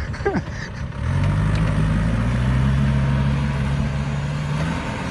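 Heavy diesel engine of a dump truck revving up about a second in and held at steady higher revs under load, then easing off near the end.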